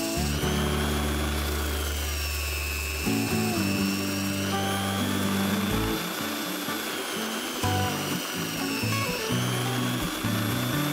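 A homemade belt sander driven by a drill press, running with a high whine that sags and recovers in pitch twice as a block of wood is pressed against the sanding belt. Background music with a sustained bass line plays over it.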